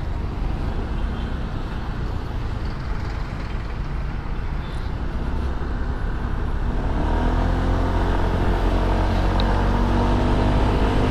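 Honda SH150i scooter riding in city traffic: engine and wind noise on the microphone, then about seven seconds in its single-cylinder engine note comes up and rises steadily in pitch as it accelerates.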